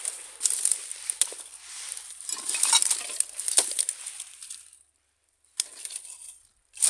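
Dry grass and twigs rustling and crackling as a hand rummages through dump debris, with sharp clicks mixed in. It stops just before five seconds in, followed by a couple of separate clicks.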